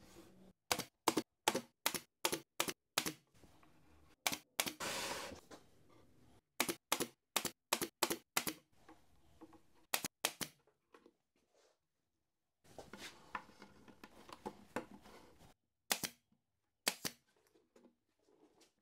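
Pin nailer firing rapid single shots, about three a second, driving pins through wood edge strips into plywood, in two runs with a stretch of rustling handling noise between them. A second stretch of handling noise and two last shots come near the end.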